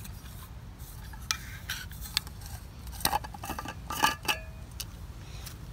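Stanley stainless steel coffee press flask being unscrewed and its plastic cap-cups pulled apart: a few light clicks and clinks of plastic on steel, with a short ringing clink about four seconds in.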